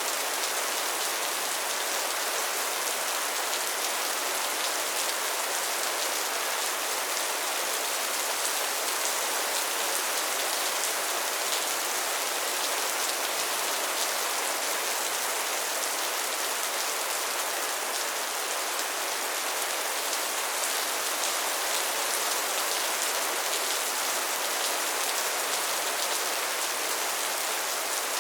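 Rain falling steadily, an even, unbroken hiss with no claps or gusts.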